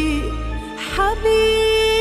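Arabic pop love song: a singer holds a long note with slight vibrato from about a second in, over a steady bass and keyboard backing.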